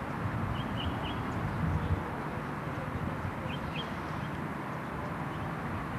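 Outdoor background of a steady low rumble with a few short bird chirps: a cluster about half a second in, another about three and a half seconds in, and one more near the end.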